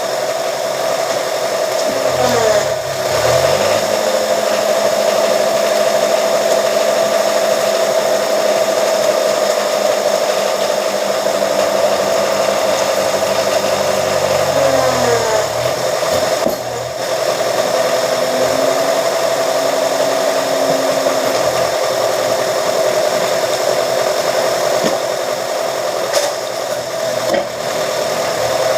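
Motor of a scrap-iron straightening press machine running steadily with a high hum. A deeper hum comes in about two seconds in and again from about twelve to sixteen seconds, sliding in pitch as it starts and stops.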